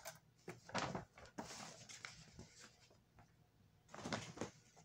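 Paper pages of a book being handled and turned: short rustles and soft knocks, with a longer papery rustle about a second and a half in and another cluster near the end.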